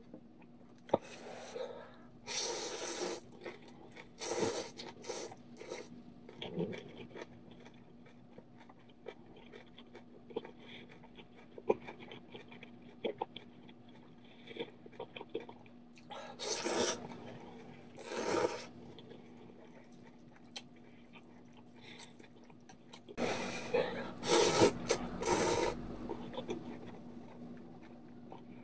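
A person slurping instant ramen noodles in several long, noisy draws, with chewing and small clicks of wooden chopsticks against a stainless steel pan between them. A steady low hum runs underneath.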